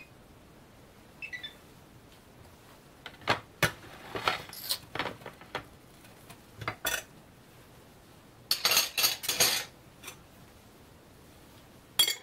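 Metal kitchen utensils clinking and knocking against a stainless steel frying pan and dishes: scattered single clinks and knocks, a rattling run of clinks lasting about a second a little past the middle, and one more sharp clink at the end.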